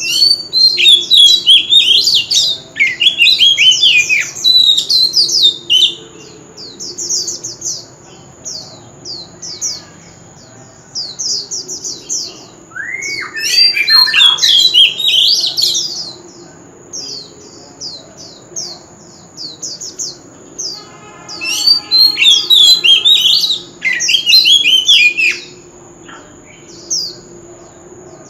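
Male oriental magpie-robin singing its competitive song: three loud bouts of varied, fast whistled phrases with sweeping glides, separated by quieter stretches. A rapid run of short, high ticks carries on underneath throughout.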